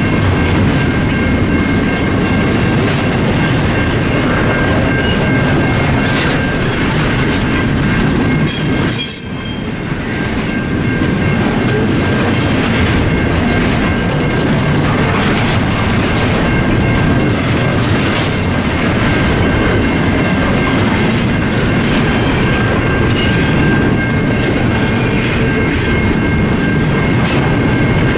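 Double-stack intermodal freight cars of a CSX train rolling through the crossing, their wheels clacking and rumbling over the rails. Over them, the crossing's mechanical bells (a Safetran and a Western-Cullen-Hayes) ring steadily. About nine seconds in, the rumble dips briefly under a short high squeal.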